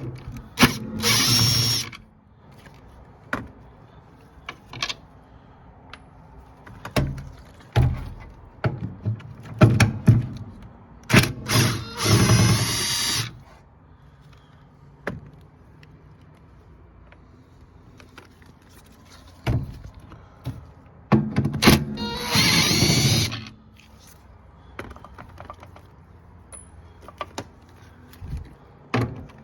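Power drill running in short bursts of one to two seconds, a few times, with a motor whine that shifts in pitch as it backs out screws. Short clicks and knocks of handling come between the bursts.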